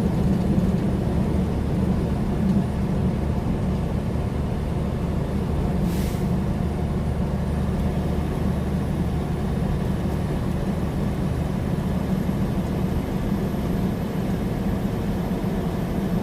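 Steady drone of a heavily loaded semi truck's engine and tyres heard from inside the cab while cruising at highway speed, with one brief tick about six seconds in.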